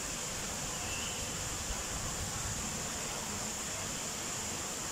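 Small rock waterfalls splashing steadily into a koi pond, with a constant high-pitched hiss over it.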